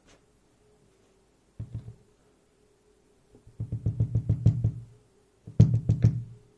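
Trioving D12 lock cylinder being knocked against a hard surface to shake out a driver pin and spring. One short knock comes about a second and a half in, then two runs of rapid tapping, about ten knocks a second.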